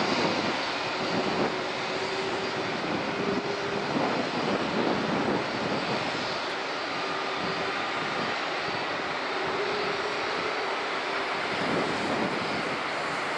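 Jet engines of a Singapore Airlines Boeing 777-300ER, its GE90 turbofans running at taxi power: a steady jet noise with faint humming tones that come and go.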